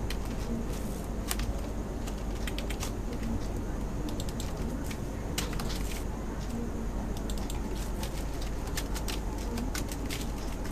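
Computer keyboard typing: irregular key clicks over a steady low hum.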